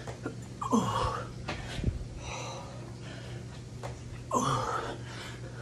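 A man breathing hard through a burpee set, with two loud, falling grunting exhales about a second in and again near the end, and a dull thud of body or feet hitting a floor mat in between.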